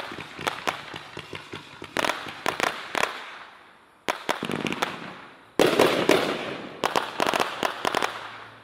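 Brothers 'Sky Wide' 500 g fireworks cake firing rapid shots, each a sharp crack. There is a brief lull about four seconds in, then a louder, denser volley a second and a half later that dies away near the end as the cake finishes.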